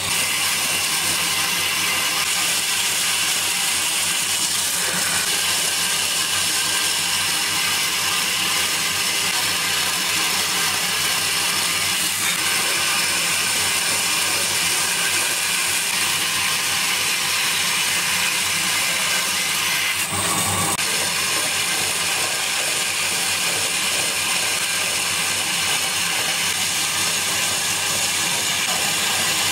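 Bandsaw running steadily while its blade cuts into a thick wooden block, with a brief change in the sound about twenty seconds in.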